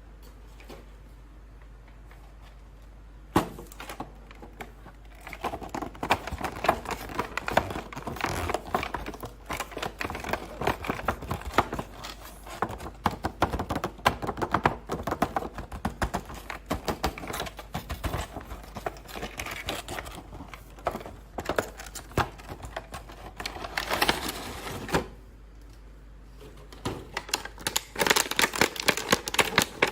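Toy packaging being handled and opened: dense, rapid plastic and cardboard clicks and crinkles. The clicking starts a few seconds in, stops briefly near the end, then resumes.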